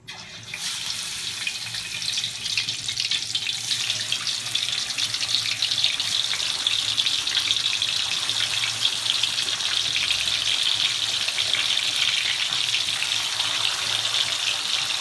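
Fish slices sizzling and crackling in hot oil in a wok. The sizzle starts suddenly as the first piece goes in, builds over the first few seconds as more pieces are added, then holds as a steady, dense fizz.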